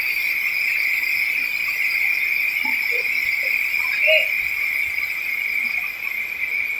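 A chorus of insects droning steadily at one high pitch, loud and unbroken.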